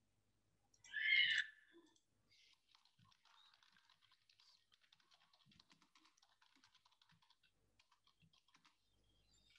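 Computer keyboard typing: a fast, irregular run of faint key clicks as code is typed. A brief louder burst of noise comes about a second in.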